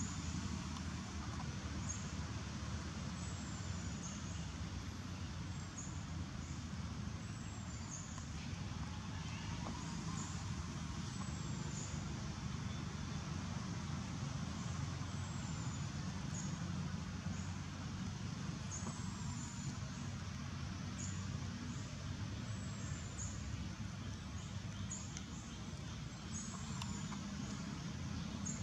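Steady low rumble of distant road traffic. Faint short high chirps repeat every second or two.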